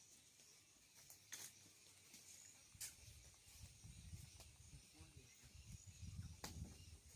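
Near silence: faint background hiss with a few soft, sharp clicks and a low rumble that starts about three seconds in.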